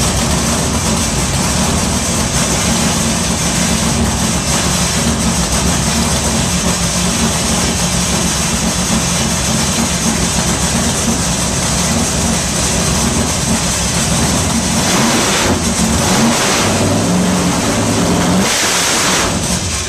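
Chrome Hemi V8 on an engine run stand, running loud and steady through open headers. Near the end it is revved up briefly twice.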